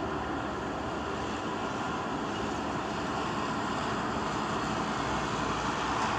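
Steady noise of a moving cruise ship, a continuous hum mixed with rushing water and wind, with no bangs or pops.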